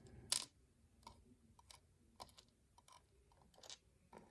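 Faint, irregular small clicks and taps of lock pins being handled and sorted, with the loudest click about half a second in.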